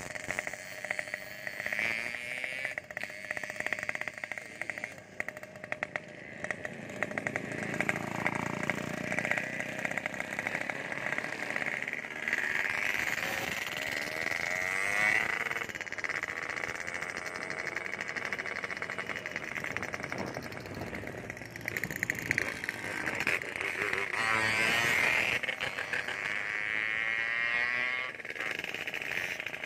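Motorcycle engine running on the road while riding, its note rising and falling several times.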